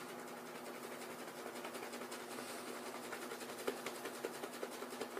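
Large silver tip badger shaving brush swirling thick soap lather on a bearded face: a soft, quick, rhythmic bristly swishing with a few small wet clicks, over a faint steady hum.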